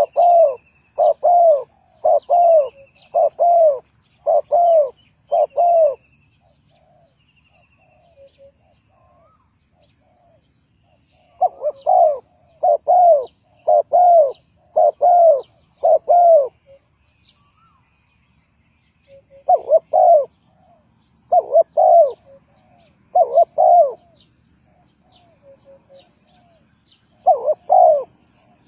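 Spotted dove cooing in runs of about five to eight evenly spaced coos, each run followed by a pause of a few seconds. Faint high chirps of small birds sound in the background.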